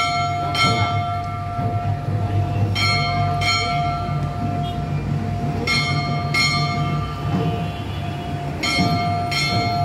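Hindu temple bell struck twice in quick succession, about half a second apart, and again every three seconds or so, its ringing tone hanging on between strikes over a low steady hum.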